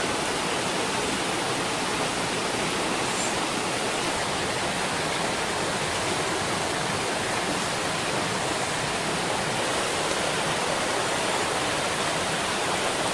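Steady rushing of a stream and small waterfall, an even noise that does not change.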